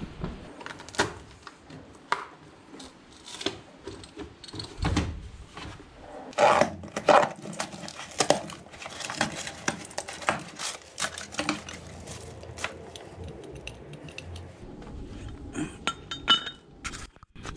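Metal tools and sockets clinking and clattering as a gloved hand rummages through a plastic socket-set case, with a dense run of sharp clinks in the middle.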